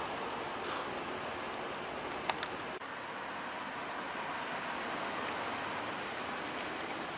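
Steady outdoor street noise with a car driving slowly up, plus a faint high-pitched ticking about five times a second and a sharp click or two early on.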